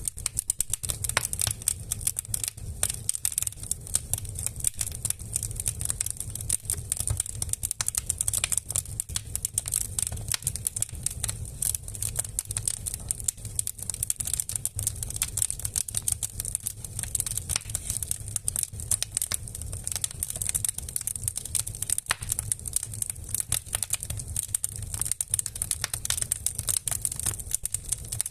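Wood fire burning in a stove: the logs crackle with a dense, constant patter of sharp pops over the steady low hum of the fire's draft.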